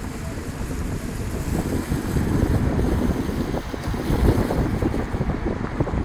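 Wind buffeting a phone's microphone from a moving car: a gusty low rumble that grows louder about two seconds in.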